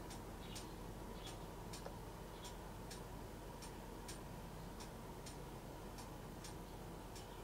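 Faint, regular ticking at about two ticks a second, falling in uneven pairs, over a steady low room hum.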